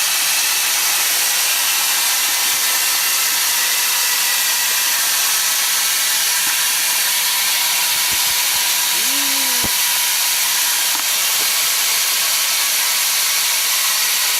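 Steady, loud hiss of steam escaping from a standing narrow-gauge steam locomotive. A brief pitched sound that falls away cuts in about nine seconds in.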